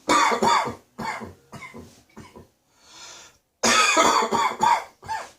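A person coughing hard with a spring cold, the cough sitting deep in the throat. There are two fits of several coughs each, the second starting about three and a half seconds in, with a few smaller coughs and a breath drawn in between them.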